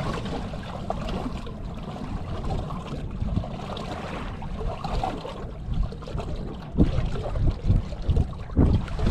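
Water lapping and trickling against a boat hull, under a steady low wind rumble on the microphone, with a few louder gusts near the end.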